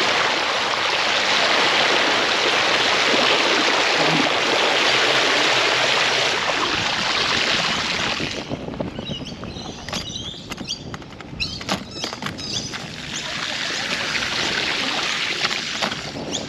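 Steady rush of flowing water for about eight seconds, then it drops away to quieter sound with scattered clicks and a few short bird chirps, and the rush comes back near the end.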